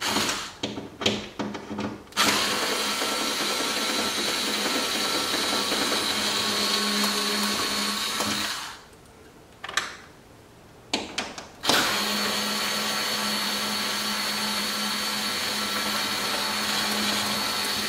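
Cordless power screwdriver backing out two screws: a few short trigger blips, then a steady motor whine for about six seconds, a pause with more blips, and a second steady six-second run.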